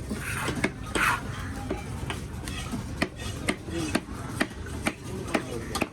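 Knife cutting fish on a cutting block: a string of sharp chops about every half second, with scraping strokes in the first second.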